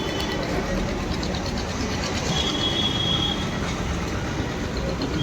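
Steady background noise in a tyre shop, with a brief high-pitched squeal about two seconds in.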